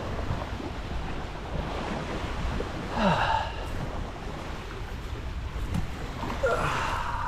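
Wind buffeting the microphone over lake water washing and splashing during a jet ski ride, with a brief higher-pitched sound about three seconds in and another near the end.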